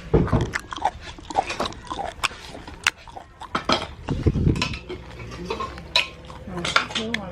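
Irregular clinks and knocks of plates and cutlery as people eat, with chewing and other mouth sounds.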